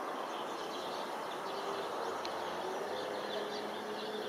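Outdoor city background: a steady hum of distant traffic with small birds chirping faintly, and a faint steady tone joining about a second and a half in.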